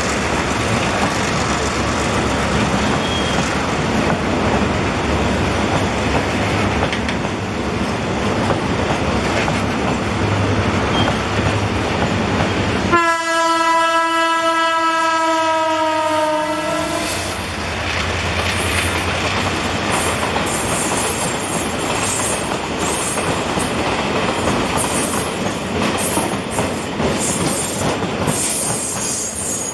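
Freight train of open wagons rolling past, its wheels clacking over the rail joints. Midway, a train horn sounds one long steady note for about four seconds. After that the wheels add sharp high clicks and squeals.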